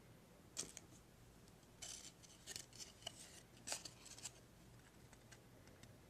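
Trading cards being handled, with short scraping rustles and light clicks of card stock sliding over card stock. They come in a handful of quick bursts in the first four seconds, then only faint ticks.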